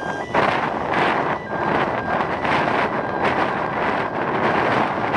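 Wind buffeting the microphone in gusts, over the turboprop engine noise of a de Havilland Canada Twin Otter moving away down the runway.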